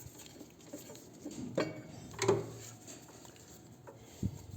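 A few scattered clicks and knocks of hand tools and metal parts as a motorcycle brake caliper is unbolted, with a duller knock near the end.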